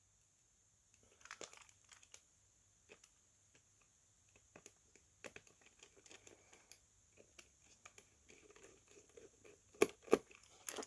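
Faint handling noises from a smartphone being worked on by hand: light crinkling and small taps and clicks. Two sharper clicks come near the end.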